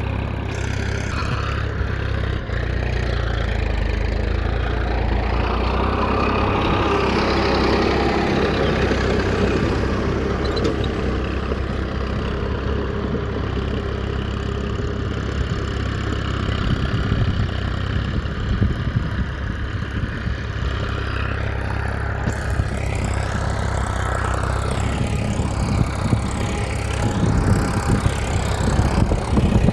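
A motor running steadily with a constant low hum, with more irregular clattering in the last few seconds.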